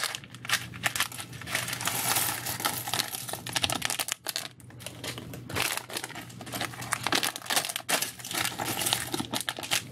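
Thin plastic parts bags crinkling and tearing open in the hands, with small plastic building pieces clicking and clattering against each other as they are shaken out.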